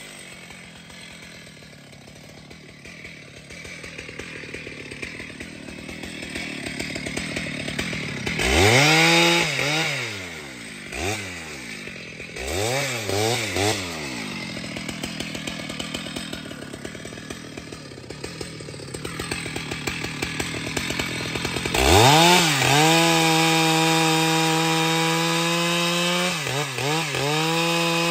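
Large Stihl MS 881 chainsaw idling, then blipped up to high revs several times about a third of the way in. It drops back to idle, then goes to full throttle about three quarters in, the pitch dipping slightly and holding as it cuts into the log. Near the end it runs in quick rises and falls.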